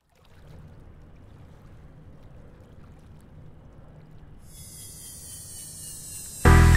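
Faint steady background noise, then a high-pitched whine made of several steady tones comes in abruptly about four and a half seconds in. Loud music with heavy bass starts just before the end.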